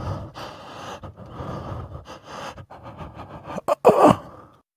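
A man breathing heavily into a microphone in a run of noisy breaths, ending about four seconds in with a loud vocal sound that falls in pitch.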